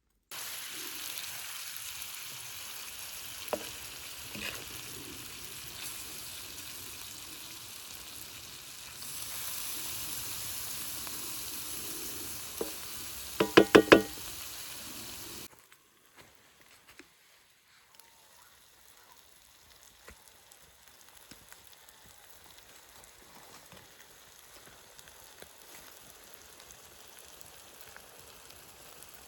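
Chicken frying in a saç (sheet-iron pan), sizzling steadily, with a few light knocks. Just before the halfway point come four quick, loud, ringing metal taps. About halfway the sizzling cuts off abruptly and only a faint hiss remains.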